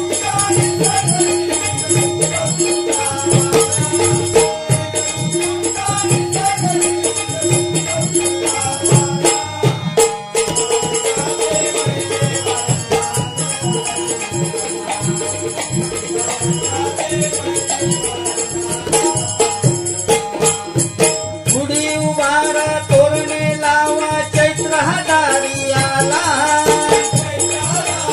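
Bhajan accompaniment without singing: a harmonium playing a melody over a fast, even drum rhythm, with jingling metallic percussion such as hand cymbals on top.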